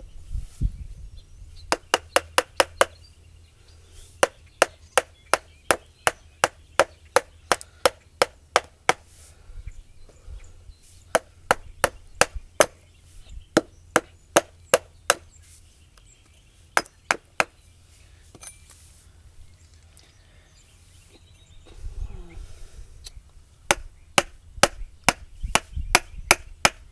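Mallet striking a chisel into a wooden log: sharp taps in runs of a few a second, with short pauses between the runs.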